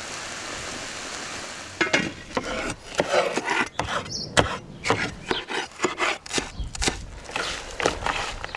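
Lamb pieces sizzling in hot oil for about the first two seconds. Then a knife chops greens on a wooden cutting board in a run of quick, irregular knocks.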